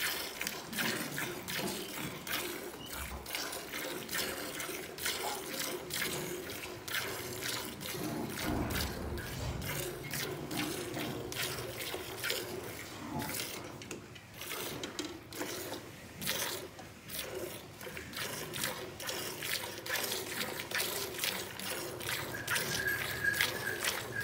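Cow being milked by hand into a steel pail that already holds milk: a steady rhythm of squirts streaming into the milk from two hands working the teats.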